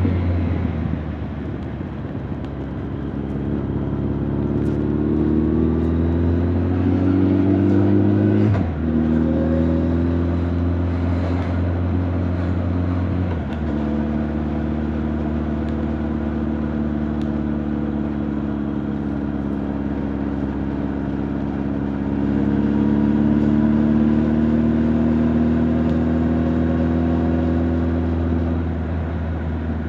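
Honda CB1300 Super Bol d'Or's inline-four exhaust under way, rising in pitch as it pulls, then dropping sharply twice, at about 9 and 13 seconds in, as it shifts up, before holding a steady cruising note. Recorded close against the rider's back, so the exhaust is heard with little wind noise.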